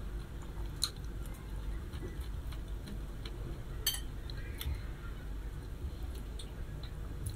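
Eating with chopsticks from a ceramic bowl: soft chewing, with a few sharp clicks of the chopsticks against the bowl, the loudest about four seconds in.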